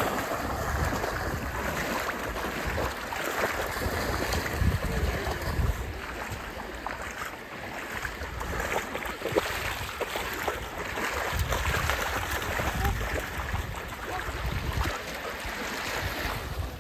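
Wind buffeting the microphone over shallow water splashing as two dogs, a golden retriever and a small white dog, wade and run through the shallows, with small waves lapping at the shore.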